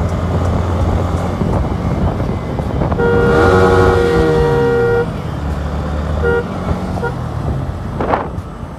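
A vehicle horn is held for about two seconds, then tooted briefly about a second later, over a motorcycle running at road speed with wind on the microphone.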